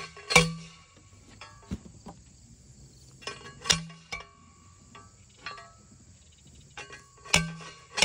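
Metal temporary-fence post being driven into the ground with a hand post pounder: sharp ringing metallic clanks, three loud strikes about three and a half seconds apart with lighter knocks between. Crickets chirr steadily underneath.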